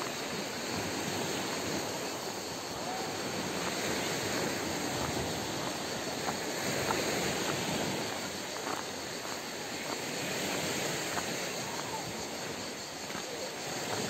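Sea waves washing onto the shore: a steady rush that swells and fades every few seconds.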